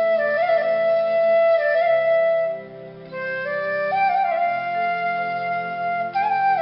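Background music: a slow flute-like woodwind melody of long held notes over a soft sustained accompaniment.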